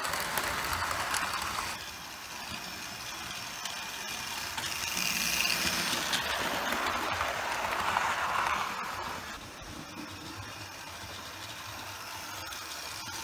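Hornby OO-gauge model trains running on sectional track, their motors and wheels making a steady mechanical running noise. It is loudest in the first two seconds and swells again as a train passes close, about six to nine seconds in.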